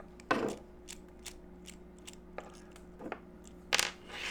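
Small metal clicks and clatter of a DOM Diamant disc-detainer lock and small tools being handled while the lock is taken apart, with two louder clatters, about a third of a second in and near the end.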